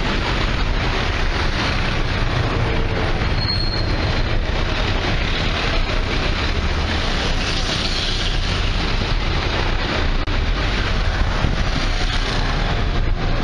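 City street traffic heard from a car with its side window open: a steady mix of engine and tyre noise from cars and motor scooters passing close. A brief high squeak about three and a half seconds in.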